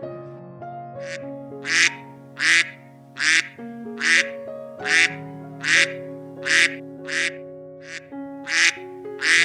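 A duck quacking over and over, about a dozen short quacks at a steady pace of roughly one every three-quarters of a second, with soft background music beneath.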